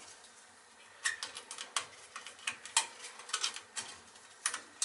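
Irregular light clicks and taps, a few each second beginning about a second in, from tools and small parts being handled while working on a gas boiler's operating control.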